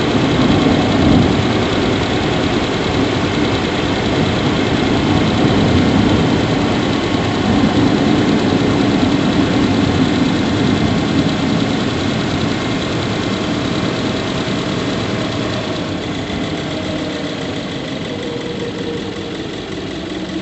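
Subaru Levorg 1.6GT-S's 1.6-litre turbocharged flat-four idling steadily, heard in the engine bay, with a few thin steady high tones over the engine noise. The engine is being checked for an abnormal squeak from the engine bay that gets louder as it keeps running. The sound grows gradually quieter in the last few seconds.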